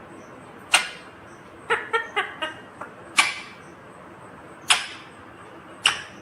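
Indian ringneck parakeet giving four short, sharp screeches spaced one to two seconds apart, with a quick run of short chattering notes between the first and second.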